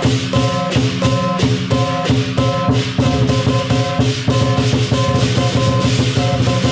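Music with drums and percussion keeping a steady, even beat.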